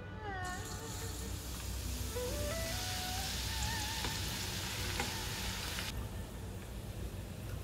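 Chopped garlic sizzling as it fries in hot oil in a stainless steel pot. The sizzle starts about half a second in and cuts off suddenly around six seconds in, with background music running over it.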